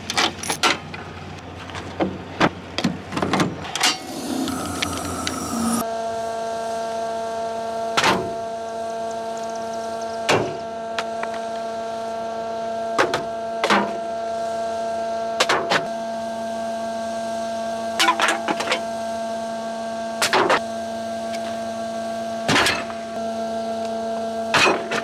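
A few loose knocks and clicks, then from about six seconds in a steady machine hum at one fixed pitch, broken by a sharp click or knock every two to three seconds.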